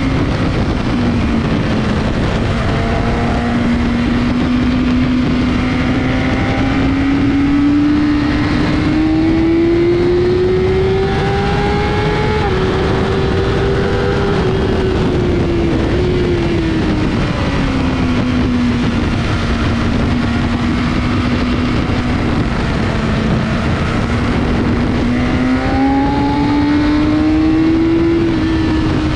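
Sport bike engine pulling at high revs on a race track, heard onboard: its note climbs slowly for about twelve seconds, eases back, then climbs again near the end, under heavy wind rush on the microphone.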